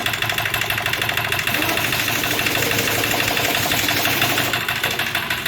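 Hyundai Accent CRDi diesel engine running with a rapid, even clatter.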